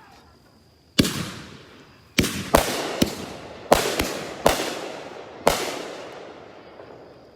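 Consumer aerial fireworks cake firing: about eight sharp bangs at uneven intervals, each fading out slowly.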